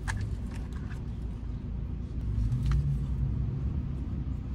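Steady low rumble of a car cabin, with a couple of faint clicks: one just after the start and one a little past halfway.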